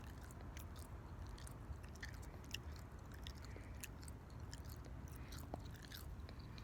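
Faint, irregular close-up clicks and crackles over a low steady rumble.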